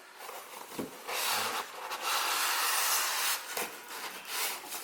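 Packaging being handled during unboxing: a long rubbing, rustling scrape from about one second in to just past three seconds, with a few short scrapes and knocks around it.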